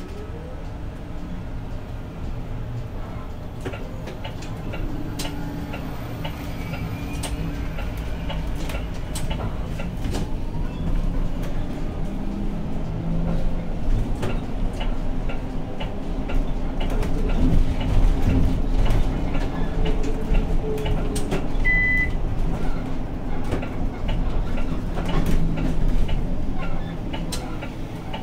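Inside a Zhongtong LCK6113SHEVG hybrid city bus on the move: the drivetrain runs with a low hum whose pitch shifts as the bus speeds up and slows, and the cabin rattles and clicks throughout. It gets louder toward the middle and eases near the end. A single short, high beep sounds a little over twenty seconds in.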